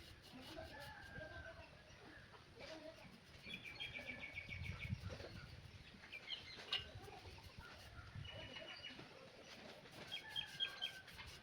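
Faint bird calls: several quick runs of high, rapid chirps, a few seconds apart.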